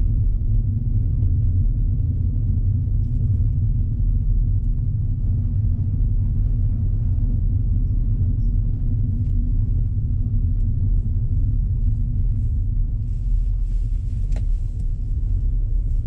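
Steady low rumble of a car cabin on the move: road and engine drone with a faint steady hum, holding even throughout.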